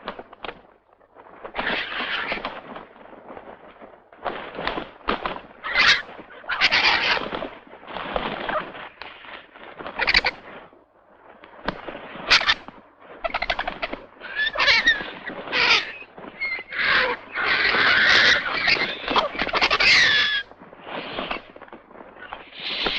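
A crowd of vultures squabbling over a carcass: harsh hisses, grunts and squeals in quick bursts one after another, the squealing calls thickest in the last third.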